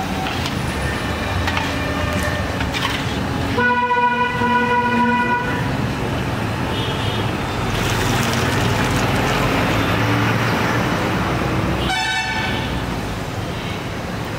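Steady street traffic noise with a vehicle horn honking once for about two seconds, about four seconds in, and a shorter honk near the end.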